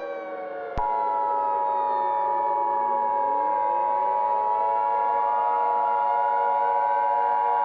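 Emergency Alert System attention signal: a steady two-tone beep (853 and 960 Hz together) that starts about a second in and holds unbroken. Beneath it, a wailing siren sound falls in pitch and then rises again.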